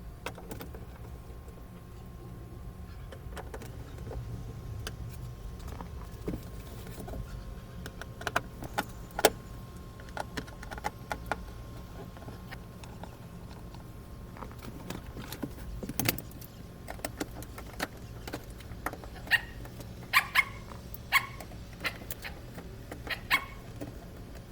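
Scattered light clicks and metallic ticks of a Phillips screwdriver and small screws being worked out of a Ford Focus door trim panel. A dog barks several times near the end.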